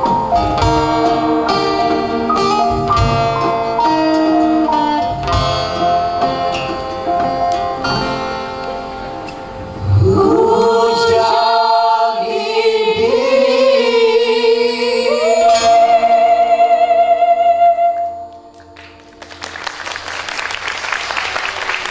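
Plucked-string accompaniment with a few low drum thumps for about ten seconds, then a small group of voices sings a closing phrase together with long held notes, ending about eighteen seconds in. Audience applause begins near the end.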